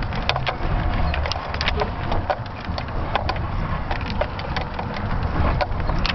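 Wind buffeting the microphone of a camera hanging under a balloon payload, heard as a low rumble and hiss. Over it come irregular sharp clicks and creaks, several a second, from the payload and camera mount as they swing.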